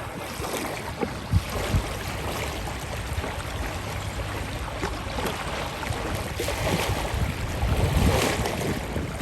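Small river waves lapping and splashing, with a couple of sharper slaps about a second and a half in and a louder wash of water near the end.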